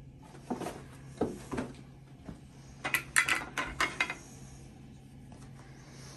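Plastic measuring cups being handled: a few light knocks, then a quick run of sharp clicks and clatters about three seconds in as the nested cups knock together.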